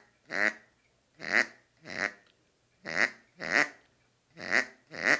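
Bird-call whistle imitating a small duck (marreco), blown in short whistled calls that come in pairs: about seven calls, two to a pair about half a second apart.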